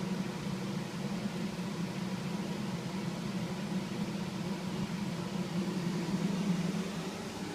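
Kitchen range hood exhaust fan running with a steady hum and hiss, drawing off smoke from fat burning off a roasting lamb.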